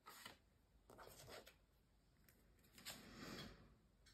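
Very faint rustling and sliding of paper cards on a cutting mat as they are handled, in three short stretches.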